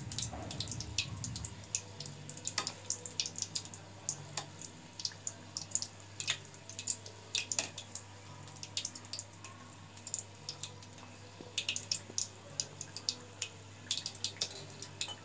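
Veg pizza puff pastry deep-frying in hot oil in a small, deep kadai over medium heat. The oil sizzles steadily, with irregular sharp crackles and pops all the way through.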